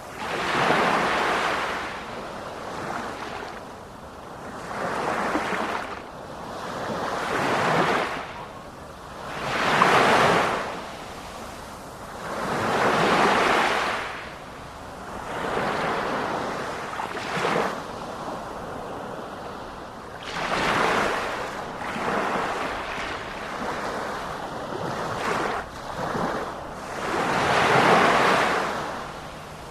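Ocean waves breaking and washing up the shore, each surge swelling and falling back every three to four seconds, with some wind on the microphone.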